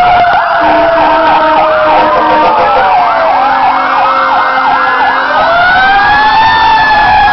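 Several fire truck sirens sounding at once, loud: a slow wail gliding down and then back up, overlapped in the middle by a fast yelp sweeping up and down about three times a second.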